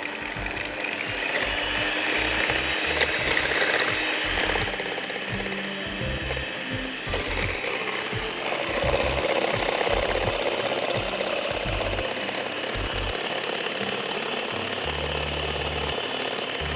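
Electric hand mixer running steadily, beating eggs in a bowl.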